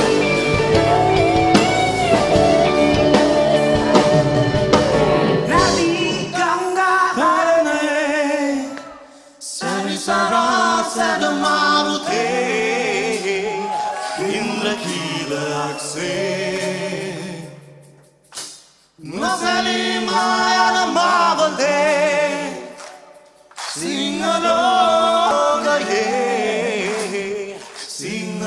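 Live band music with electric guitar. About six seconds in, the band drops away and several male voices sing together in phrases, with short pauses between them.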